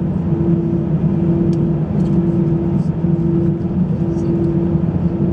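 Airbus A320 cabin noise: steady jet engine and airflow noise with a low hum that wavers at an even beat, a little under once a second.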